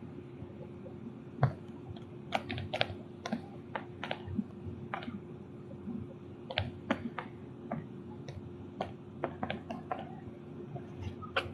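Fingers tapping and typing on a phone: irregular light clicks, a few a second, over a steady low hum.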